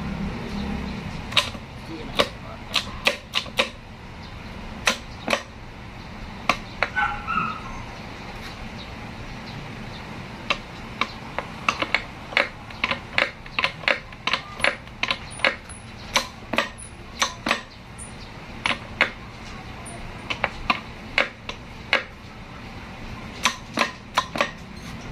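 Sharp metallic clicks and clinks, irregular and at times several a second, as the steel gears and shafts of a manual transmission's gear cluster are handled and fitted together during an overhaul.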